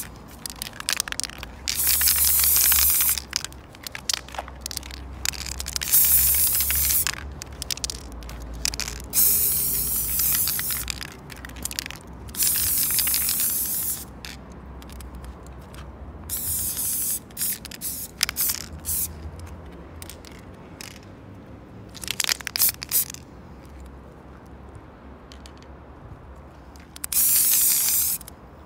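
Aerosol spray-paint cans hissing in repeated bursts of a second or two, with many shorter spurts between them.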